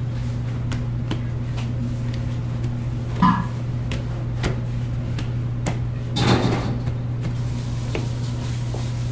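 Kitchen work sounds: a few knocks, and a louder clatter about six seconds in, over a steady low hum.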